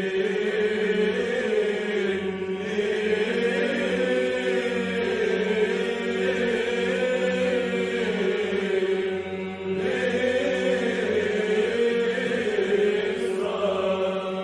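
Orthodox church chant: a sung melody carried over a steady held drone note, with a short break in the singing a little under ten seconds in.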